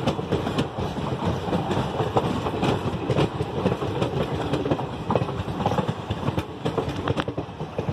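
Indian Railways passenger coaches passing close by, the steel wheels making a steady rumble with irregular clickety-clack clicks as they run over the rail joints.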